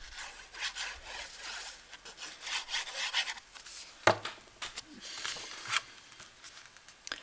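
A sheet of patterned paper rustling as it is handled and laid onto a card-stock card base, then rubbed and pressed flat by hand to glue it down. There is a sharp tap about four seconds in, as the sheet meets the card.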